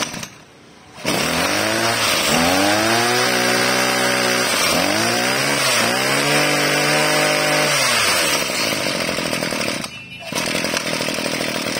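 Maruyama 24cc two-stroke brush-cutter engine starting about a second in and being revved: the engine note climbs, dips and climbs again around the middle, then falls back near the end while the engine keeps running.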